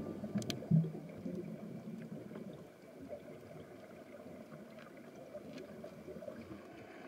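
Faint muffled underwater gurgling with a few light clicks, after the tail of background music fades out in the first second.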